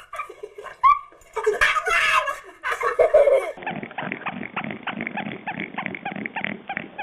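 A person laughing during the first three seconds or so. Then, after an abrupt change, a dense, rapid crackling patter of small clicks.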